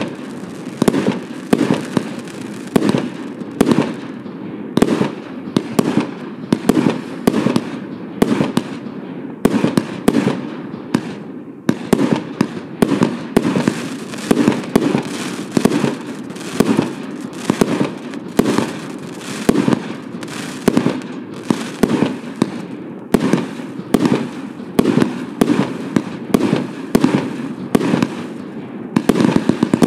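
Hallmark 'Insidious' consumer firework barrage firing shot after shot, about one loud bang a second with many smaller pops and crackles between.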